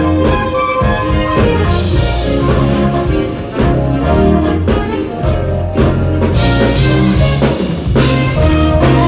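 Live band playing at a sound check: drum kit keeping a steady beat under bass, keyboards and guitar.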